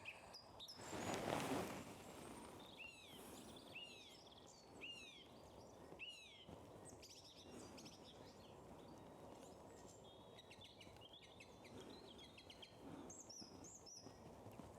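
Song thrush singing faintly: one clear down-curving note repeated four times in a row, then other quick, higher, varied phrases. A brief rush of noise about a second in.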